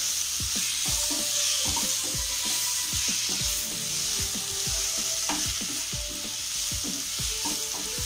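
Spice-coated mixed vegetables sizzling in oil in a kadai while a spatula stirs them. The spatula scrapes and taps against the pan about three or four times a second over a steady sizzle.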